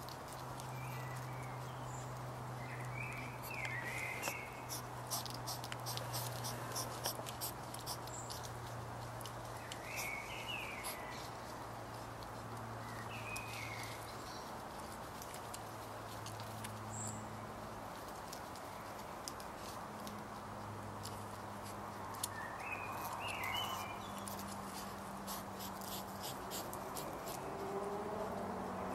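European hedgehog eating, its chewing heard as a quick run of sharp clicks, mostly in the first third. Short bird chirps come now and then over a steady low hum.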